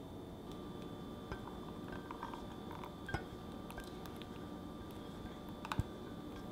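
A few light clinks of a metal spoon and pan rim on a stainless steel saucepan and ceramic bowl as thick custard is stirred and poured, over a steady low hum.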